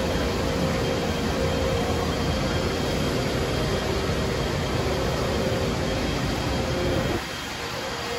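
Steady hum of running machinery on a factory floor, a low rumble under a faint steady whine; the rumble drops away about seven seconds in.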